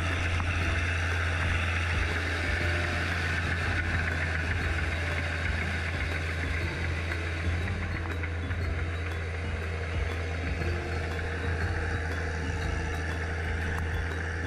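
Tractor engine running steadily with a low drone, its cage wheels churning through the mud and water of a flooded rice paddy.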